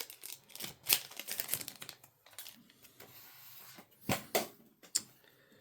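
Irregular sharp taps, clicks and crinkles of Yu-Gi-Oh booster packs and trading cards being handled on a table, with a few louder knocks about a second in and again near the end.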